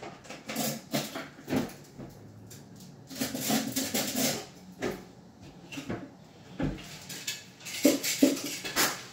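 Irregular knocks and clattering of tools and hardware being handled, with a run of clatter a few seconds in and several sharp knocks near the end.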